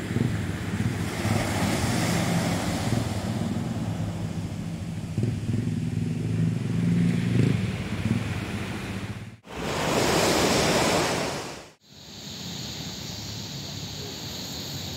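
Sea surf washing onto a sandy beach, over a low steady hum for the first nine seconds or so. The sound cuts off abruptly twice, about nine and twelve seconds in, with a louder rush of surf between the cuts and a steadier, quieter wash after.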